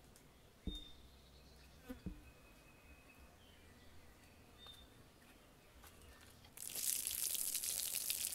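Two soft thumps early on, then, from about two-thirds of the way in, a steady splashing gush as the cloudy rinse water from washed rice is poured out of a clay bowl onto the ground.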